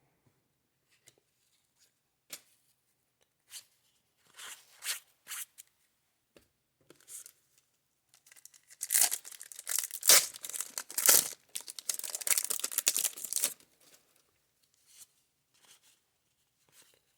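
Light rustling and clicks of handling, then about nine seconds in a baseball card pack wrapper is torn open with several seconds of crinkling and tearing, followed by a few soft taps.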